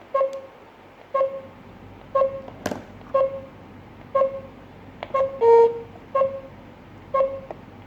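GSM alarm system panel beeping: short identical mid-pitched beeps about once a second, with one longer, lower beep a little past halfway. A sharp click comes between beeps near the three-second mark.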